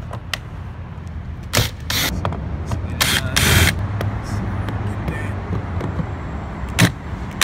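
Cordless Porter-Cable drill/driver running in short bursts as it backs screws out of a plastic car door trim panel, with clicks against the panel. The longest burst comes about three seconds in. A steady low hum lies beneath.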